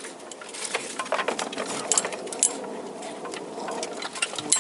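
Steel bolt clicking and scraping against metal as it is worked into an engine-to-gearbox joint hole: a quick, uneven run of sharp metallic clicks with scraping between.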